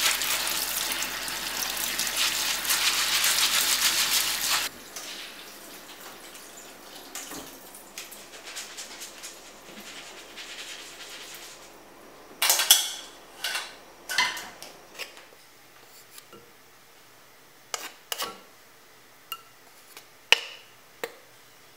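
Kitchen tap water running onto red lentils in a stainless mesh strainer as a hand swishes them, shut off abruptly about four to five seconds in. Faint dripping and handling follow, then a quick run of sharp metal knocks and clinks of kitchenware and a few scattered single clicks near the end.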